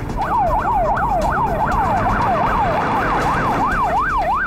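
Two police sirens sounding together, each a fast up-and-down yelp of about three sweeps a second, out of step with each other, over a low rumble.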